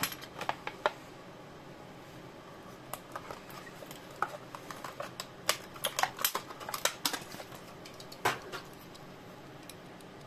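Plastic blister pack of a Hot Wheels card being pried and peeled open by hand, giving irregular clusters of sharp crackles and clicks.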